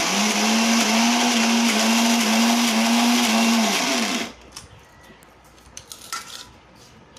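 Electric mixer grinder running for about four seconds, grinding soaked chana dal coarsely without water into vada batter, then switched off, its motor dropping in pitch as it winds down. A few light clinks follow.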